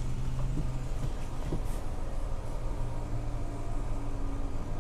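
Electric motor of a camper van's power sofa running steadily as the seat slides out toward the bed position: a low, steady mechanical hum.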